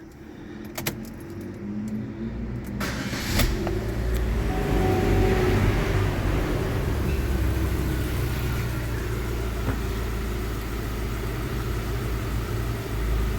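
Warm four-cylinder GM Onix engine being started: a few key clicks, then a brief crank about three seconds in. It catches, rises for a moment and then settles into a steady idle while the scan tool runs the idle-control relearn after the throttle body was cleaned.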